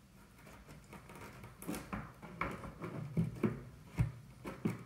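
Series of light knocks and taps as a hand works a tile-faced hidden access panel in its opening, with a heavier knock about four seconds in.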